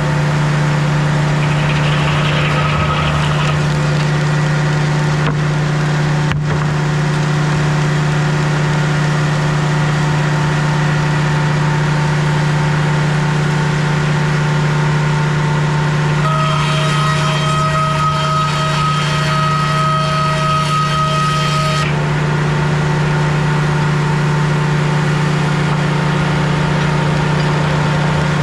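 Sawmill engine running steadily. For about five seconds past the middle a higher steady whine with added hiss joins in, then stops suddenly.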